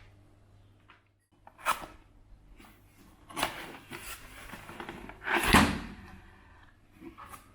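A keycap box being opened by hand: a sharp knock about two seconds in, then scraping and rustling of the box, loudest around five and a half seconds in, and a few light clicks near the end.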